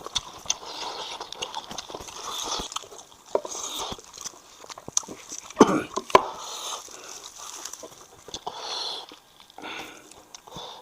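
Close-miked eating sounds: a person chewing and biting meat off a spicy braised sheep's head, in an irregular run of mouth noises and clicks. Two louder sharp sounds come just after the middle.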